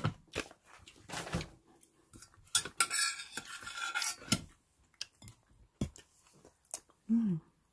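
Metal spoon scraping and clinking against the inside of a stainless steel pot, scooping up the last of the rice porridge: a run of sharp clinks with a longer scrape about three seconds in.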